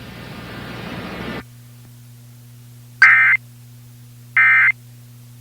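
Emergency Alert System data tones: short identical bursts of the warbling SAME digital code, twice about a second and a half apart, the End of Message signal that closes an EAS broadcast. Before them a hiss of static cuts off about a second and a half in, leaving a steady low hum.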